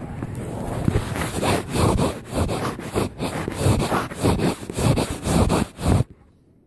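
Rough scraping and rubbing handling noise on the phone's microphone as the phone is swung about, with many quick knocks, cutting off suddenly about six seconds in.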